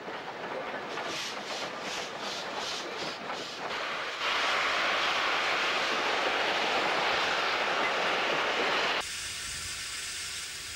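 Steam tank locomotive (a NSW 10 class 2-8-2T) working: a run of exhaust beats, about three a second, then a loud steady hiss of escaping steam for about five seconds, which drops suddenly to a quieter hiss near the end.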